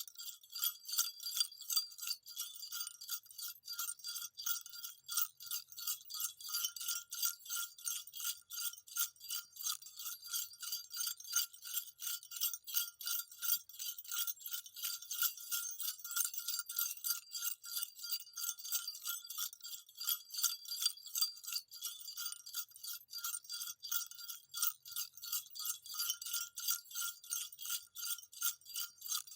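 Small jingle bells shaken continuously in a rapid, even jingle, with a steady ringing note beneath the bright metallic tinkle.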